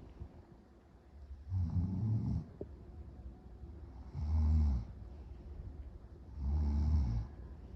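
A sleeping person snoring: three loud snores, each under a second long, coming about every two and a half seconds.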